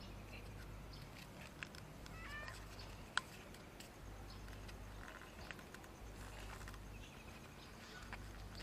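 Street cat giving one short, faint meow about two seconds in. A sharp click about three seconds in is the loudest sound.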